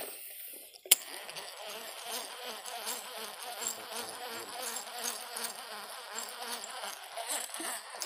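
Fishing reel cranked to retrieve a lure: a sharp click about a second in, then a steady buzzing whirr.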